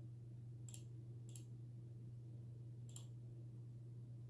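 Three computer mouse clicks, two about half a second apart and a third over a second and a half later, over a steady low hum.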